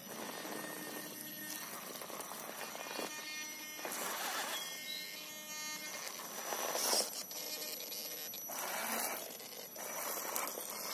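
Radio-controlled rock crawler with two brushed motors mounted on its axles, whining faintly in short runs as it crawls over rock, with bursts of tyre scrabbling and scraping.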